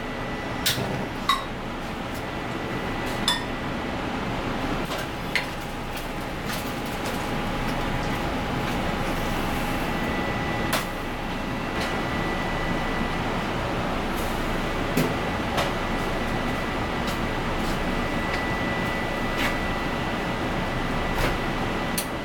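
Steady rushing of a commercial gas range burner and kitchen noise, growing slowly louder as a small aluminium saucepan of water comes to a boil. A few short metal clicks and clinks sound here and there.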